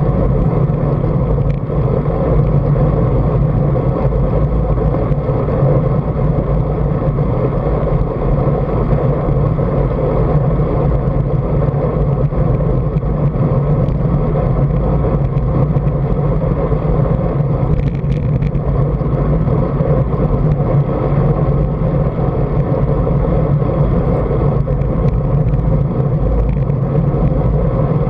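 Steady, loud wind rumble on a bike-mounted action camera's microphone while riding a road bike at speed, mixed with road and tyre noise.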